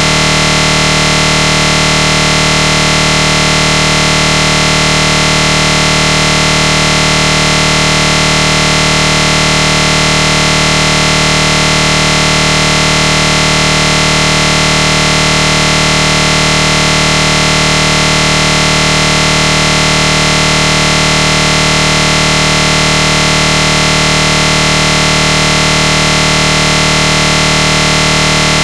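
A loud, continuous buzzing drone made of many fixed tones that never changes in pitch or loudness.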